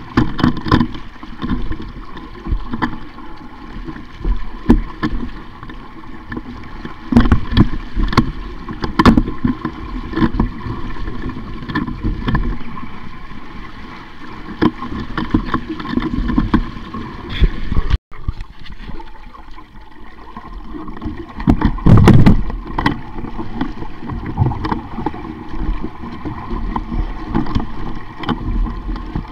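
Sailing dinghy under way: water rushing and splashing along the hull with wind noise, broken by frequent short knocks. There is a louder, deeper burst about three-quarters of the way through.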